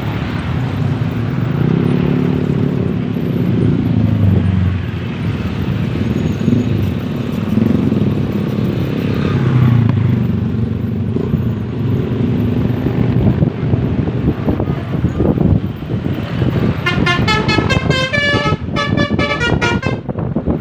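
Vehicle engines running on the road, their pitch rising and falling in waves. Near the end a bus's basuri telolet horn plays a quick run of changing musical notes for about three seconds.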